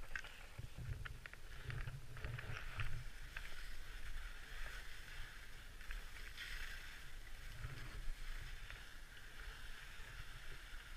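Wind buffeting a helmet camera's microphone in gusts, a low rumble that swells and fades, with a few short crunches of snow in the first few seconds as the skier moves.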